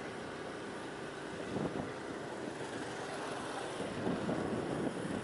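Steady vehicle and road noise with wind on the microphone.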